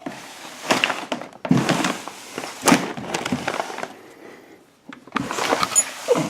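Handling noise: an irregular run of knocks, scrapes and rustles as something is moved about, busiest in the first few seconds and again near the end.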